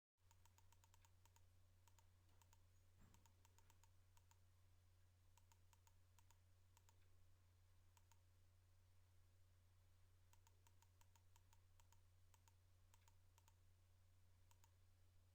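Near silence: a faint steady low hum with scattered runs of small, sharp clicks.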